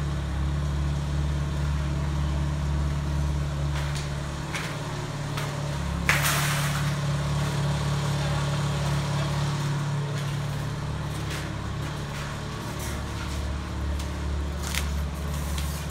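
Motor vehicle engine running steadily in a low hum, with a sudden short, loud hiss about six seconds in and a few faint clicks.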